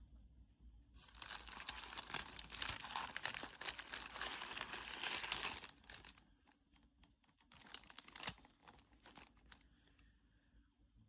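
Paper burger wrapper crinkling as a hand peels it back and lifts the burger from its takeout box. A dense stretch of crackling lasts about four seconds, followed by a few scattered crinkles.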